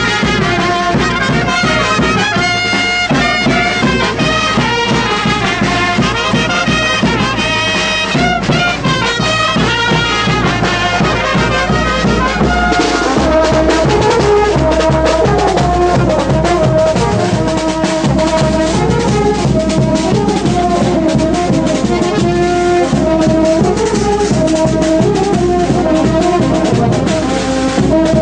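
Brass band playing a wititi dance tune, brass melody over a steady beat. About halfway through the band gets a little louder and the melody moves lower.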